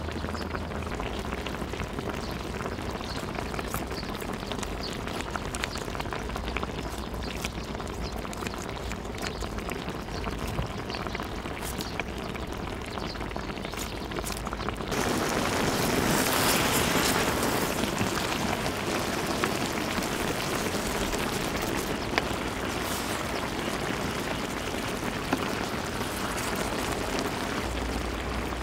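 Pot of braised kimchi (kimchi-jjim) simmering: a steady bubbling hiss with many small pops, turning suddenly louder and fuller about halfway through.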